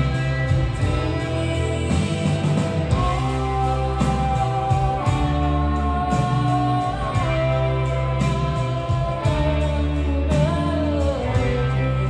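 Rock band playing live: a woman singing lead over drums, bass and electric guitar, with a steady drum beat.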